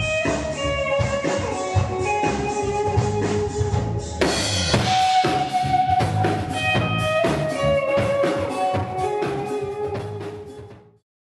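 Band music: a drum kit beating steadily under guitar with held melodic notes, fading out and stopping shortly before the end.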